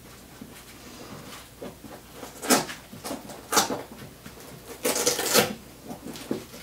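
Handling noise from unpacking a camera-kit soft case and its plastic-wrapped contents: three bursts of rustling and scraping, the last and longest about five seconds in.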